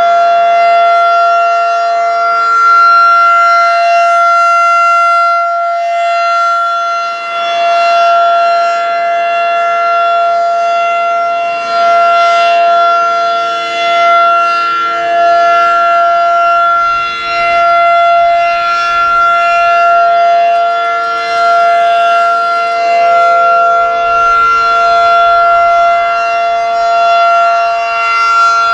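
Federal Signal 2001-SRN outdoor warning siren sounding the steady Alert tone. Its pitch holds level while the loudness swells and fades every few seconds as the rotating siren head turns.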